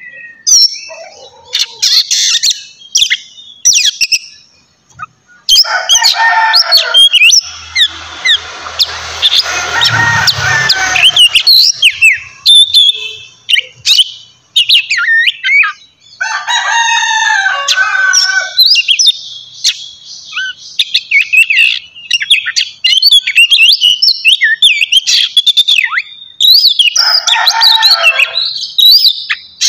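Oriental magpie-robin (kacer) singing a loud, varied song of rapid whistles and chirps, with a few seconds of harsh rasping about a third of the way through.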